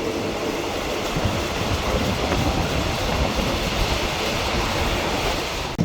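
Local passenger train running along the track, heard from inside the carriage: a steady rolling rumble of wheels on rails.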